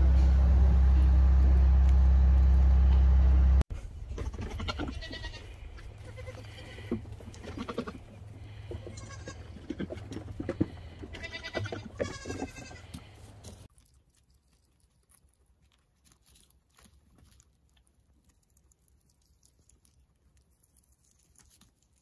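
A puppy whimpering over a loud steady low hum. After an abrupt cut about four seconds in, goats bleat, among them high-pitched kid bleats, with some rustling. From about fourteen seconds there is near silence with faint clicks.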